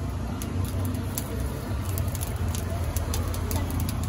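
Burning charcoal in a charcoal stove crackling, with scattered sharp pops at irregular intervals over a steady low rumble.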